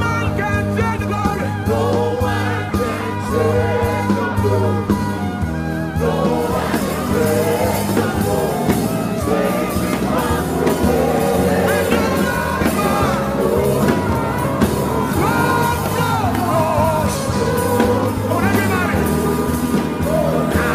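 Worship music: a voice singing long, wavering lines over sustained low chords. The accompaniment grows fuller about six seconds in.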